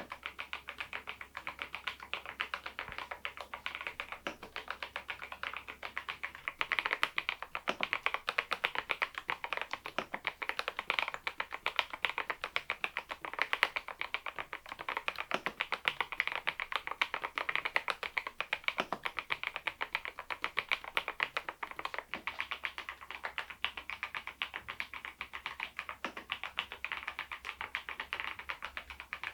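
Continuous steady typing on a Machenike K500 PRO mechanical keyboard fitted with Adelie V2 switches: a dense stream of rapid keystroke clicks, a little louder from about seven seconds in.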